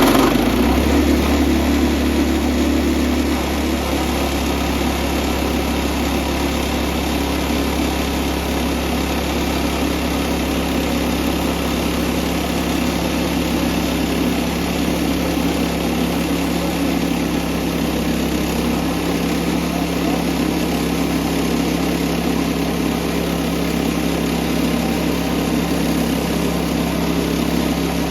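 Small gasoline engine of a portable bandsaw sawmill running steadily, a little louder for the first few seconds.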